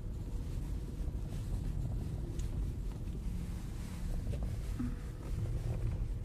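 Steady low rumble of a car driving over a rough, unpaved road, heard from inside the cabin, with a few faint clicks and rattles.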